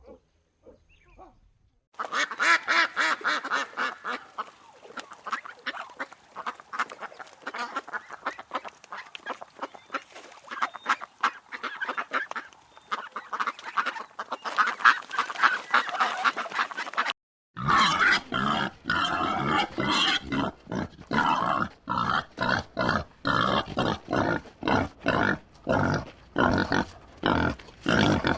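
A flock of geese and ducks honking and quacking, many calls overlapping. About 17 seconds in it cuts briefly to silence, and a different recording follows: rapid, evenly repeated animal calls, about two to three a second.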